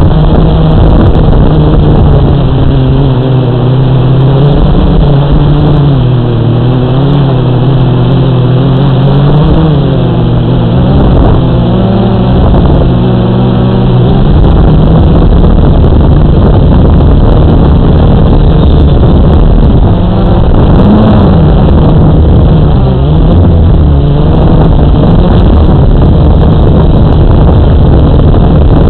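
Electric motors and propellers of a camera-carrying RC multirotor, running loud and close through the onboard camera's microphone. The pitch wavers up and down during the first half as the motor speeds adjust, then holds steadier.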